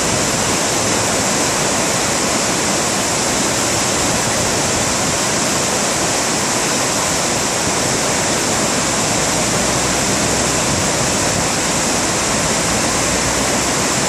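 River in flood: muddy floodwater rushing down a stepped concrete channel, a steady, loud, unbroken rush of water.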